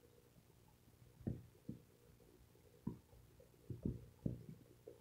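Quiet room with a low steady hum and a handful of soft, irregular low thumps.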